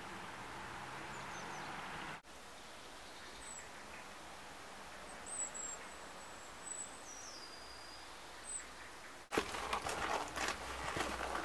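Outdoor ambience in three cut-together parts: first a steady low hum with hiss, then a quieter stretch with a few short, high bird chirps and whistles, then, near the end, louder footsteps on a snow-dusted path.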